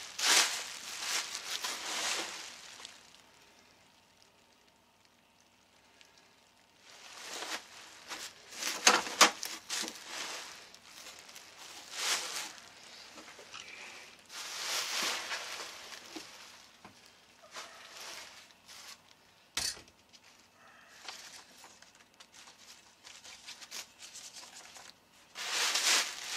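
Plastic bubble wrap being handled and pulled around a metal chassis panel: uneven bursts of crinkling and rustling, with a quiet pause a few seconds in and a single sharp knock later on.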